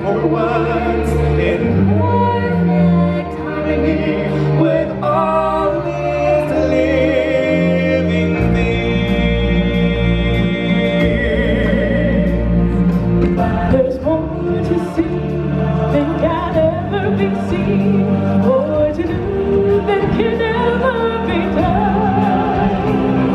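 Stage-show singing: soloists singing into handheld microphones over instrumental accompaniment with a steady bass line, the voice holding long, wavering notes.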